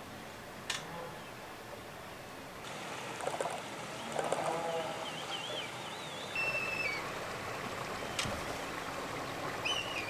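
Outdoor wind noise with birds calling: thin, high whistled calls, one wavering around the middle and a held whistle that drops in pitch a little later, plus lower calls around four seconds in. Two sharp clicks stand out, about a second in and near the end.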